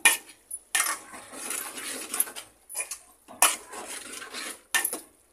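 A metal spoon stirring chickpeas in a hammered aluminium pot, scraping and clinking against the pot in several separate strokes with short pauses between them.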